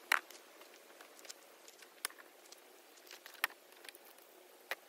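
A few faint, sharp clicks and taps, about four of them spaced a second or more apart, over a quiet background.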